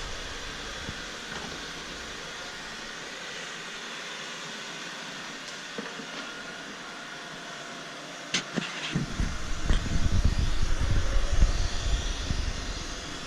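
Ecovacs Deebot N79 robot vacuum running with a steady whir. About 8 seconds in, a few sharp clicks are followed by louder, uneven low rumbling and thumps that last for several seconds.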